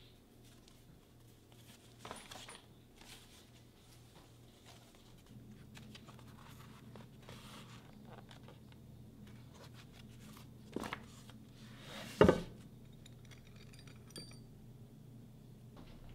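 Workbench handling sounds: stiff leather sheets rustling and sliding as they are handled and laid over an axe head. A short knock comes a little before 11 s, then a much louder sharp knock about 12 s in.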